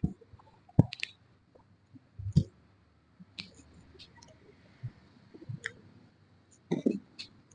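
Irregular sharp clicks and knocks, about a dozen in all, some with a low thud. The loudest come about a second in, around two and a half seconds in, and near the end.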